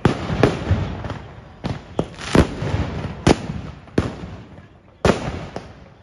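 Fireworks going off in a run of sharp, loud bangs, about nine in six seconds, each dying away before the next; the loudest come a little past two seconds and about three seconds in.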